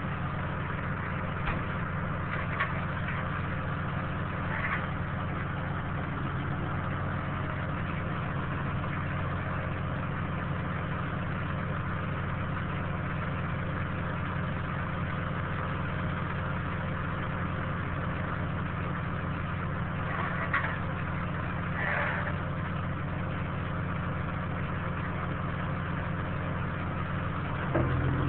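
Diesel engine of a heavy forestry grapple machine idling steadily. Near the end the engine note steps up and gets louder.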